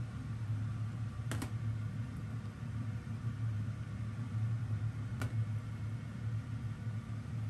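A steady low hum with two sharp light clicks, about a second in and about five seconds in.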